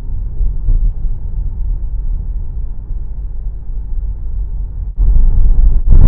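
Steady low road-and-engine rumble of a car driving, heard from inside the cabin. About five seconds in it abruptly gets much louder.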